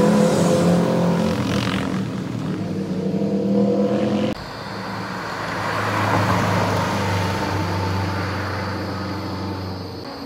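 Sports car engines on a mountain road. The first car revs harder, its pitch rising as it accelerates. About four seconds in it cuts off abruptly to another car's engine, which runs more steadily, swells and then eases off.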